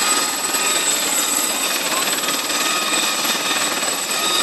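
Helicopter running: a steady high turbine whine over an even rushing rotor noise.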